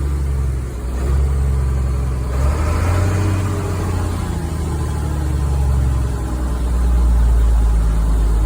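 International DT466 diesel engine in a 1978 International Loadstar 1850 truck running at a raised idle, held up by a makeshift throttle hold because it does not idle on its own. The note roughens briefly about a third of the way in and grows a little louder near the end.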